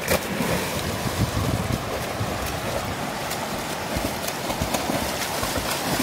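A swimmer splashing in a rocky river, with scattered splashes over the steady rush of water over shallow rapids. Wind buffets the microphone.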